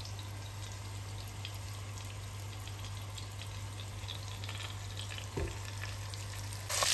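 Floured osso buco (veal shanks) searing in hot olive oil in a heavy pot: a gentle, even sizzle with faint crackles over a steady low hum. Just before the end the sizzle jumps suddenly to a loud, busy frying.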